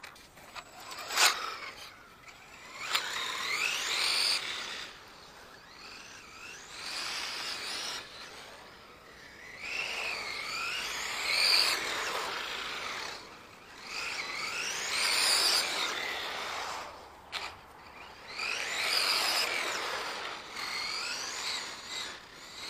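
Electric RC car's motor and gears whining, rising and falling in pitch in about six runs of a couple of seconds each as the car accelerates and slows. A sharp click about a second in.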